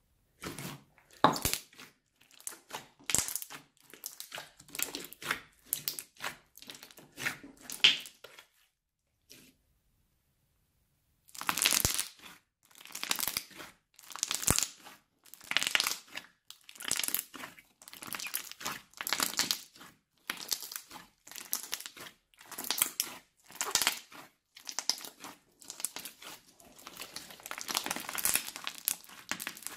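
Hands squeezing and kneading a large mass of crunchy slime packed with foam beads, making crackling, crunching squishes in bursts about once a second. There is a silent pause of a couple of seconds about a third of the way in.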